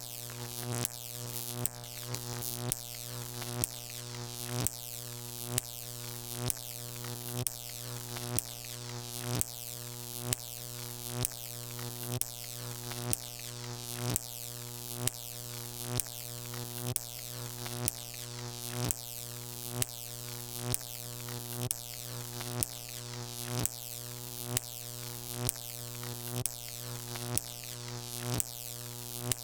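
Jacob's ladder high-voltage arc giving a steady electrical hum and crackle, with a sharp snap about once a second as each arc breaks and restarts.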